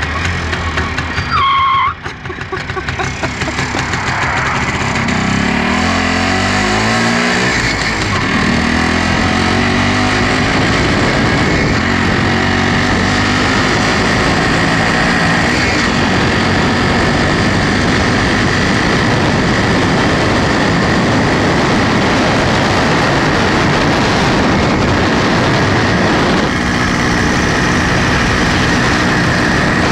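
1962 MZ 250 single-cylinder two-stroke engine on a sidecar outfit. The engine note dips about two seconds in, then climbs in pitch over the next few seconds as the outfit accelerates. It then runs at a steady cruise under heavy wind noise on the microphone, with a change in the engine note near the end.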